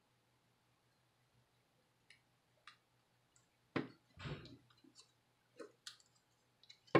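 Small clicks and taps of a plastic phone being handled and turned over on a tabletop. It is nearly quiet at first, with a sharper click a little past halfway, a brief rustle and a few light ticks after it, and the sharpest click at the very end.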